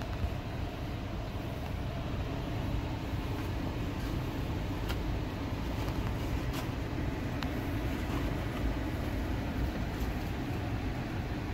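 Car engine idling, a steady low rumble heard from inside the car, with a few faint clicks partway through.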